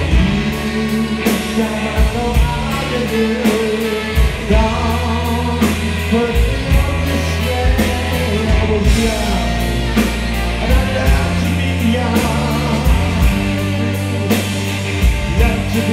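Live rock band playing an instrumental passage: saxophone carrying the melody over strummed electric guitar, bass and a steady drum beat.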